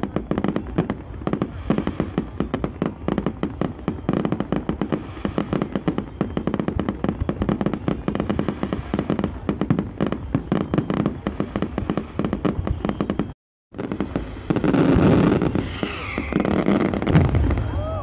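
Fireworks display: a dense, rapid stream of crackling and popping bursts. The sound drops out completely for a moment about thirteen seconds in, then returns louder.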